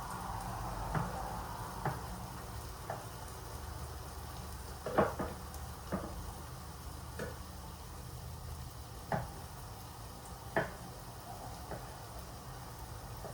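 Cooking sounds: a kitchen utensil knocking and clinking against cookware about nine times at irregular intervals, over a faint steady hiss and low hum.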